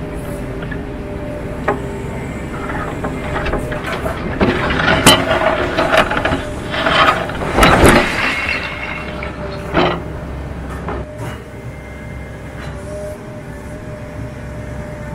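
Excavator with a demolition crusher attachment breaking away a concrete loading ramp. The engine and hydraulics run with a steady hum and a faint whine, while concrete cracks and crunches in the jaws through the middle, loudest about eight seconds in, with one sharp crack just before the tenth second.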